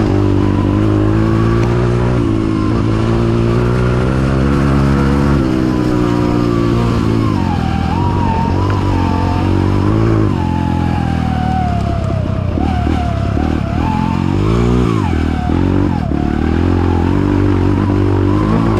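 Kawasaki KLX trail bike's engine running as it is ridden, the revs rising and falling several times, with a high wavering whine riding over the engine note.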